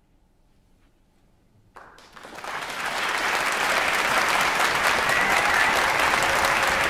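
A concert audience bursts into applause about two seconds in, after a near-silent pause at the end of an orchestral piece, swelling within a second to full, steady clapping.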